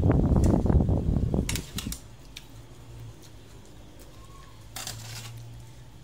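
Eating at a table with a metal spoon and china plates: loud, close sounds for the first two seconds, then quieter clinks, and a short scrape of the spoon on the dish about five seconds in.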